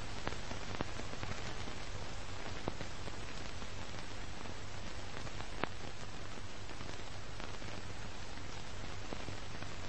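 Steady hiss with a low hum underneath and scattered faint clicks, a static crackle with no music or speech.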